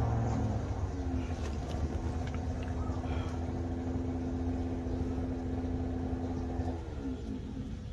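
A motor engine running steadily with a low rumble and an even hum; near the end its pitch drops away.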